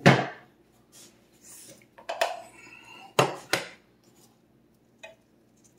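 Kitchenware clattering: about five sharp knocks and clinks, the loudest right at the start, two close together a little past three seconds in and a small one near the end, with fainter rustling between them.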